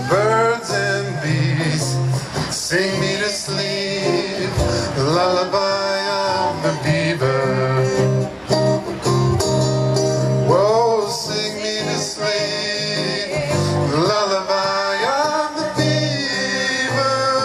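Live song: a male voice singing with gliding, wavering notes over guitar accompaniment.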